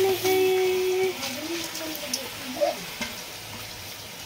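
Washed rice and dal hitting hot mustard oil in the pot and sizzling as they begin to fry. A voice holds one long note in the first second, and fainter voices follow.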